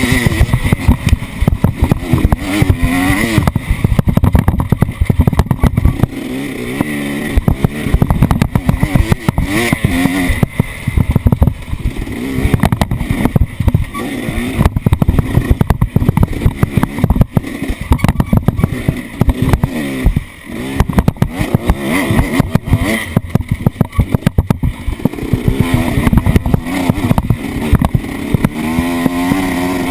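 Off-road vehicle engine running and revving up and down as it is driven over rough ground, with frequent knocks and rattles.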